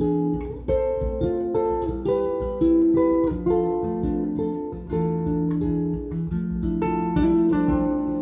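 Guitar music: a melody of plucked notes over ringing chords, a new note every half second or so.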